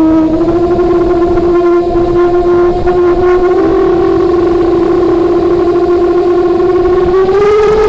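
FPV drone's brushless motors and propellers whining at a steady pitch, heard through the onboard camera. The pitch dips slightly at the start and climbs near the end as the throttle comes up.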